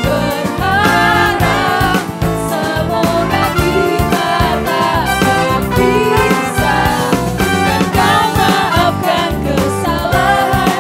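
Music: an upbeat song with a sung melody over a steady beat.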